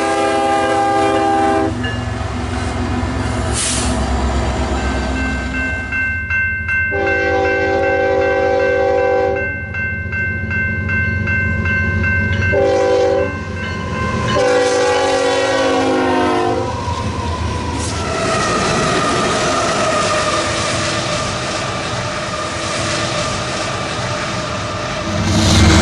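Nathan K5 five-chime locomotive air horns sounding from passing diesel freight trains. There is a blast near the start, a long one about seven seconds in, a short one, and another long one that drops in pitch as the locomotive goes by, over the steady rumble of locomotives and railcars rolling past.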